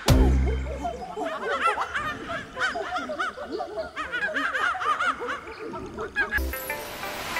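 High-pitched cartoon monkey chatter: quick squeaky calls that rise and fall, coming in bursts like snickering laughter. A low note fades out in the first second.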